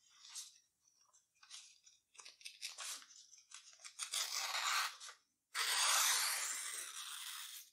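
Small hand-held paper cutter slicing a sheet of origami paper along its diagonal crease in two long strokes, the second one longer and louder. Before them come a few light rustles and clicks as the paper is handled.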